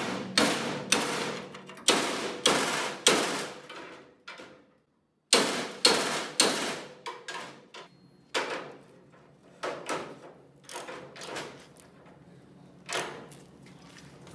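Hammer blows on steel, about two a second, each ringing briefly, knocking metal on the chassis's angle-iron bracket down so a socket can reach the bolt head. After a short break come a few more blows, then lighter scattered metal clanks.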